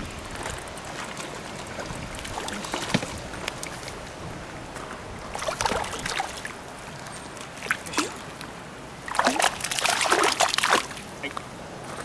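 A hooked fish thrashing and splashing at the water's surface as it is played to the bank, in short bursts, the loudest and longest cluster near the end.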